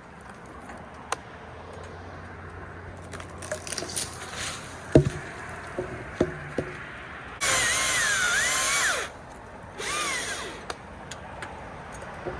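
Chainsaw cutting in short bursts: a long cut of about a second and a half past the middle, then a shorter burst about a second later, its whine wavering in pitch. Before that, a few sharp knocks and clicks, the loudest about five seconds in.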